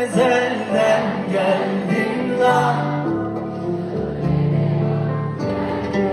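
Live pop music: a man singing into a microphone over band accompaniment, his voice giving way to held instrumental notes for a couple of seconds in the middle.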